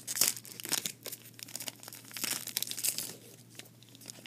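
Trading-card pack wrapper (a cabinet-card box-topper pack) being torn open and crinkled by hand, in a few short rips and rustles, the loudest at the start and again about two seconds in.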